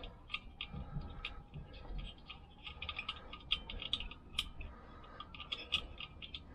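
Irregular light metallic clicks and small rattles as nuts and spring washers are spun by hand onto the studs of a Vespa PX engine.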